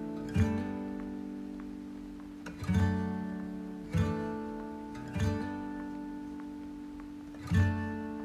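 Background music: acoustic guitar strumming chords, five strums each ringing out and fading before the next.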